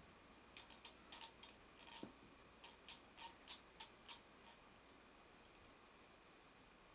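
Near silence broken by a run of faint, light clicks, about a dozen at irregular spacing over roughly four seconds, that stop about two and a half seconds before the end.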